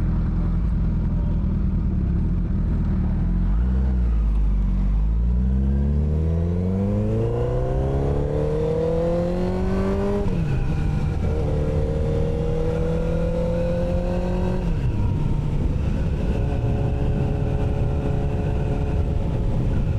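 Sport motorcycle engine accelerating: its pitch climbs through a gear for several seconds, drops sharply at an upshift about ten seconds in, then climbs again. It eases off at about fifteen seconds in and settles into a steady cruise.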